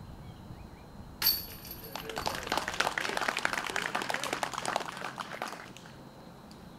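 A disc golf disc strikes the metal chains of a basket with a sharp, ringing clash about a second in. About a second later comes roughly three and a half seconds of scattered clapping.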